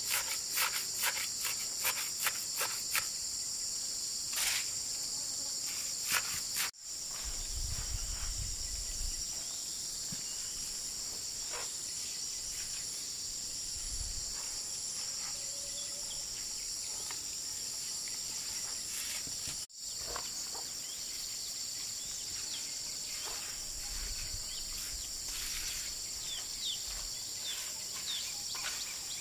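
Steady high-pitched insect chorus, with a quick run of sharp clicks or knocks in the first few seconds and a few short bird chirps near the end.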